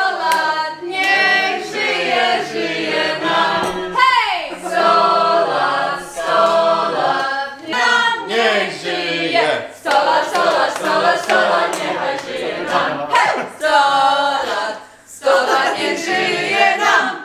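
A group of people singing a birthday song together, unaccompanied, in phrases with a short break near the end.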